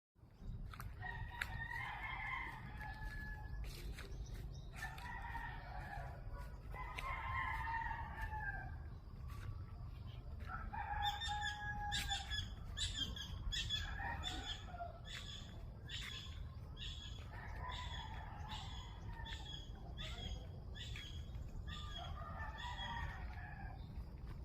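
Roosters crowing again and again, each crow lasting a second or two. From about halfway, a smaller bird repeats a short high call about one and a half times a second, over a steady low rumble.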